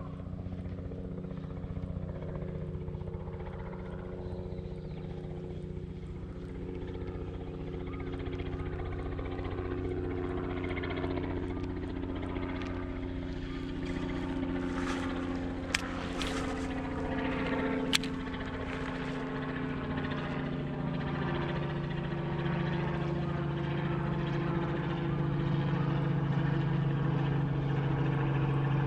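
An engine droning steadily and slowly growing louder, as if approaching, with two sharp clicks around the middle.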